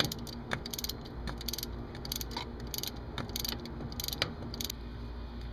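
Hand ratchet clicking in short quick runs as the water pump bolts are backed out, the clicking stopping near the end.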